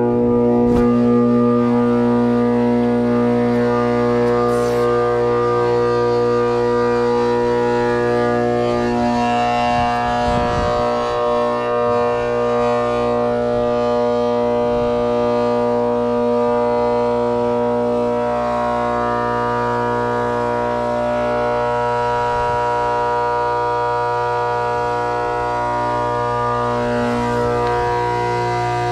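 Trane condenser fan motor with shot bearings running, giving a loud, steady howl of several held tones over a low hum; the sound of worn-out motor bearings.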